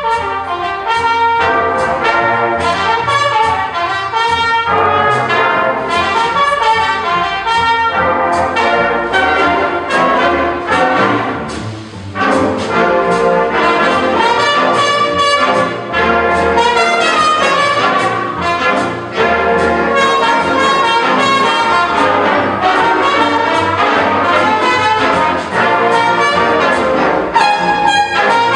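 Big band of saxophones, trumpets, trombones, upright bass and piano playing, the full band coming in at once, with a short drop in volume about twelve seconds in.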